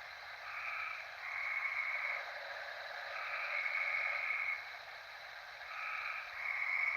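Heavy breathing on a digital voice recorder: three slow, drawn-out rasping breaths about two and a half seconds apart, each in two parts, like an in-breath followed by an out-breath.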